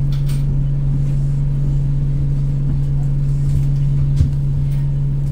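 Bus engine running steadily at idle, a constant low hum heard from inside the bus while it stands at a stop. There is one light knock about four seconds in.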